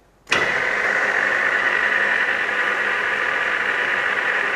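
Centre lathe switched on: the headstock drive cuts in suddenly a moment in and then runs steadily with an even hissing whir and a high whine.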